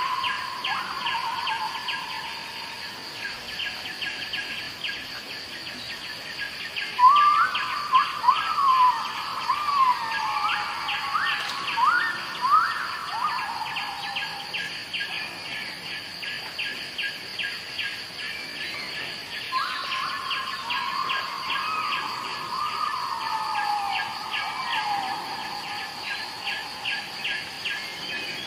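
Natural ambience of insects and birds: a steady high insect hum with a regular, rapid chirping, while a bird calls twice in bouts of falling whistled notes, once about seven seconds in and again near twenty seconds.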